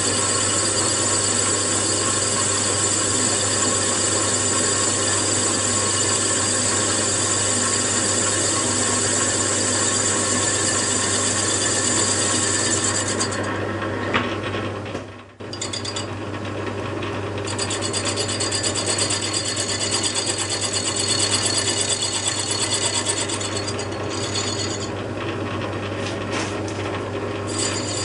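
Metal lathe running under load, a single-point tool cutting the face of a spinning metal flywheel casting: a steady motor hum with the hiss and rasp of the cut. The sound drops out briefly about halfway through, then the cutting carries on.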